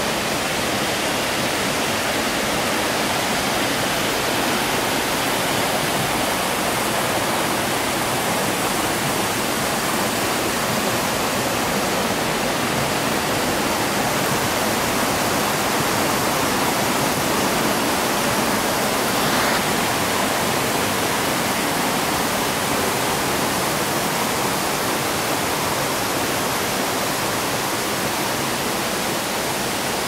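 Mountain stream flowing over rocks and small cascades, a steady, even rush of water.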